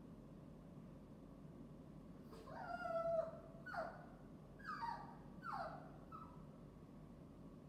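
Chihuahua puppy whining and crying at being left alone: one longer cry about two and a half seconds in, then three or four shorter whines that fall in pitch.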